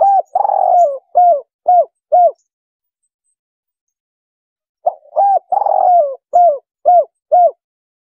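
Spotted dove cooing, the 'kuk 3' call: two phrases a couple of seconds apart. Each is a quick short coo, a longer drawn-out coo, then three short falling 'kuk' notes. It is a call type used to lure wild doves.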